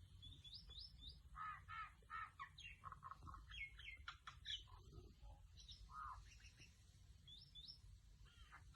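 Pet mynah bird calling in a quick, varied string: short rising whistles, some in quick runs of three, mixed with harsh chattering calls and squawks.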